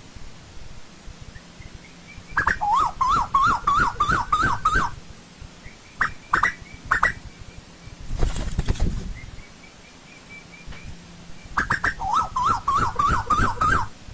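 Asian koel calling: two bursts of rapid, repeated notes, about four a second, each burst lasting a couple of seconds, with a few single notes between them. A short rushing noise comes about eight seconds in.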